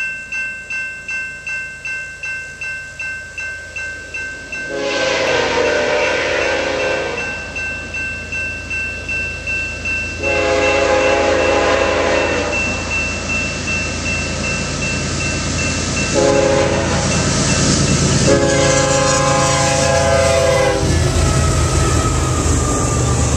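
Railroad grade-crossing bell ringing steadily while an approaching BNSF diesel locomotive sounds its horn for the crossing: two long blasts, a short one, then a long one. Near the end the locomotive passes with a low rumble and the double-stack container cars start rolling by.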